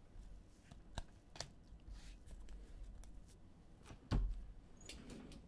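Trading cards and packaging handled on a table: a few light taps and clicks, then a thump about four seconds in.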